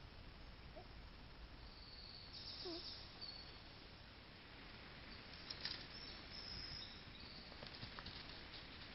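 Quiet forest ambience: a steady hiss with faint, high-pitched birdsong in short phrases, and a few sharp soft clicks about halfway through and again near the end.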